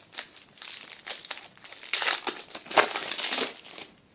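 Plastic foil wrapper of a trading-card pack crinkling in the hands as the pack is opened, in irregular crackling bursts that are loudest in the second half.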